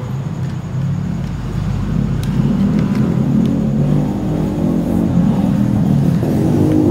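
A low, steady engine rumble that grows steadily louder.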